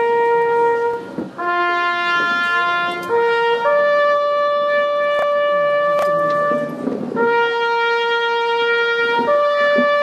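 Wind band playing a slow passage of long held notes, the pitch stepping to a new note every one to three seconds.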